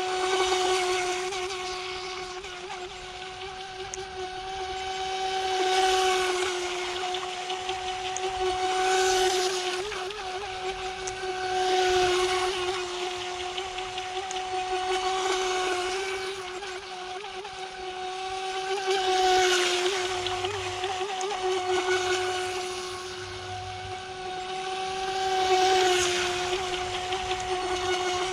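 Electric motor of a 3S Hosim RC speedboat whining at a steady high pitch, held at full throttle, with water hissing off the hull. The sound swells and fades every few seconds as the boat circles past.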